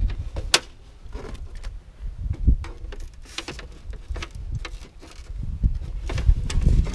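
Scattered clicks, taps and knocks of hand tools and heavy electrical cable being handled during wiring work, over an uneven low rumble.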